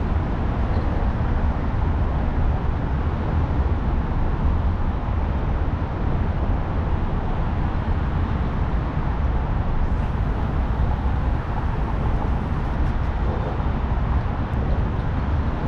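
Steady low rumble and hiss of outdoor noise, heaviest in the deep low end, like road traffic from the highway bridge overhead. No separate events stand out.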